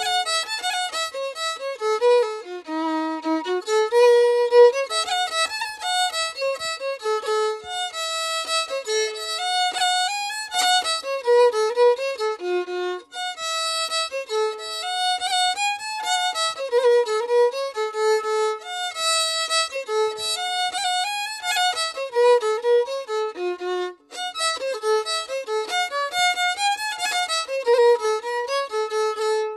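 Background violin music: a melody of quick-changing notes, with a brief pause about thirteen seconds in and another about twenty-four seconds in.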